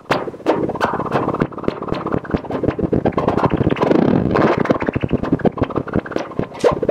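EMS VCS3 MkII analogue synthesizer making a noisy, pulsing texture: a rush of filtered noise with fast, irregular clicks, which swells and thickens about halfway through.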